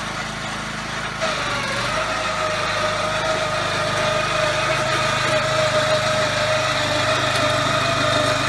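Small petrol engine of a walk-behind lawn core aerator running steadily while the machine is pushed across the lawn pulling plugs. About a second in it gets louder and a steady whine joins the engine note.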